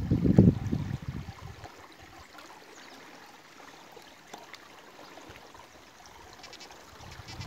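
Shallow rocky stream trickling and flowing steadily. A low rumbling buffet is heard for the first second and a half.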